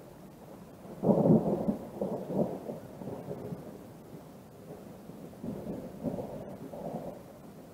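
Thunder rolling: a loud low rumble starts about a second in, then keeps rumbling with further swells before fading.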